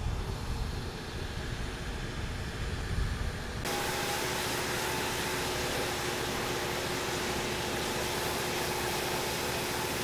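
A low rumble, then from about three and a half seconds in a steady hiss with a faint steady hum: a pressure washer spraying water on a vehicle.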